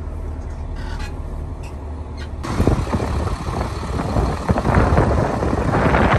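Hino box truck's diesel engine idling, first heard inside the cab, then suddenly louder and rougher from outside about two and a half seconds in.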